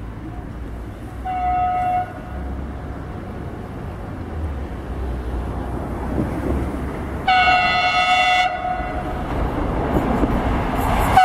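Horn of an approaching freight train sounding twice on one high note: a short blast about a second in and a longer one about seven seconds in. The rumble of the oncoming train grows louder near the end.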